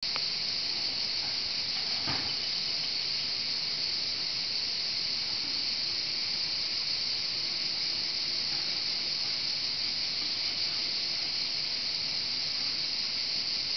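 A steady, high-pitched insect chorus, running without a break.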